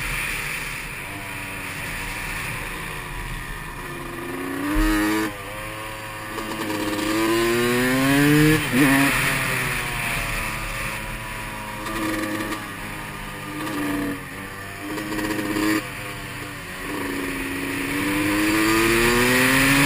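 Supermoto motorcycle engine under hard riding: it revs up with its pitch climbing, drops sharply several times as it shifts or closes the throttle, eases off into corners and pulls again. Wind rushes over the helmet-mounted microphone throughout.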